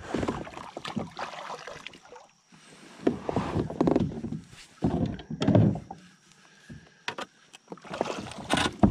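Kayak paddle strokes in shallow water: four or five separate swishes and splashes of the blades as the kayak pulls away from the shore, with a few light knocks in between.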